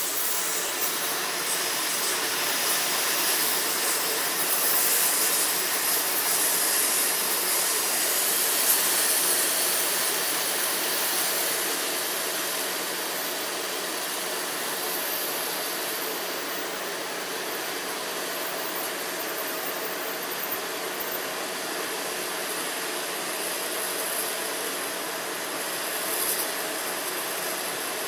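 Multiplaz 3500 water-vapour plasma torch burning with a steady, even hiss as its arc remelts a weld bead without filler rod (fusion welding) to reform and smooth it.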